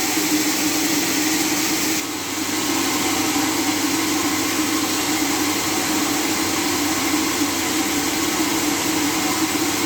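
Sawmill machinery running steadily with a constant hum, its sound changing abruptly about two seconds in.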